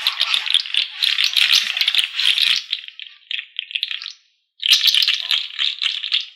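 Dense rattling of small hard pieces, a quick run of clicks that breaks off briefly about four seconds in and then starts again.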